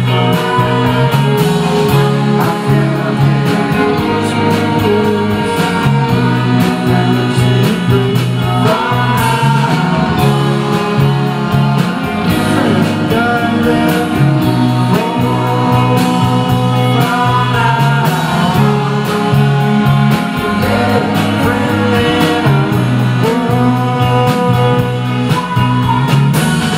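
Live band playing a rock song: electric guitars, saxophone, keyboard and drums, with singing.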